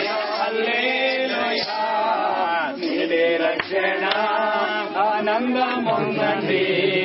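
Several voices praying aloud at the same time, overlapping in a sing-song chant.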